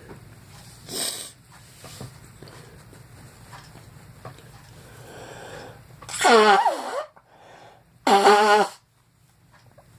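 A person's loud honking nose blows: a short breathy burst about a second in, then two loud honks, the first sliding down in pitch about six seconds in, the second steadier with a wavering tone about two seconds later.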